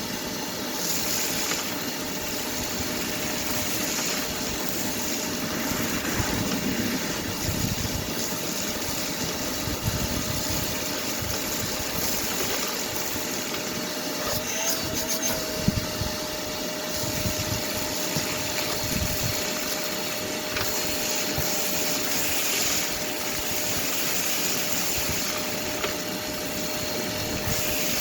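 Shop vac running steadily with a constant motor whine while sucking up broken glass, the whine briefly lifting in pitch about halfway through.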